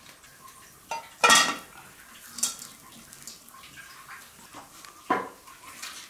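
Metal cookware clattering at a cast-iron wok: four short knocks, the loudest just over a second in, with others about two and a half and five seconds in.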